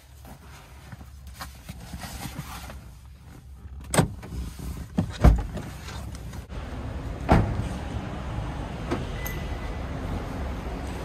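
Car door opened and shut as someone gets out: a few sharp clicks and knocks, then the loudest thump, the door shutting, about seven seconds in, over a steady low background noise.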